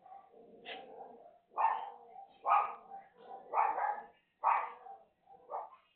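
Dog barking repeatedly, about one bark a second, after a quieter first second or so.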